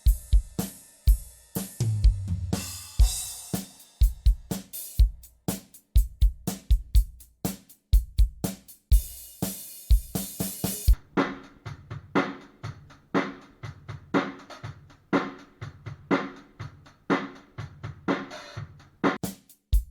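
Drum kit being played in a steady groove: bass drum, snare and hi-hat, with a sustained cymbal wash about nine to eleven seconds in.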